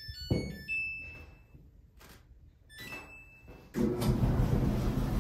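Samsung clothes dryer being started: its control panel plays a short chime tune and beeps as the buttons are pressed, with a thump at the start. About four seconds in, the drum and motor start and run loudly and steadily.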